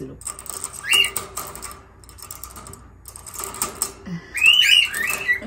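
A lovebird clicking and rattling its beak against the metal bars and door clip of its cage in quick runs, trying to break out. Short chirping calls come about a second in and again near the end.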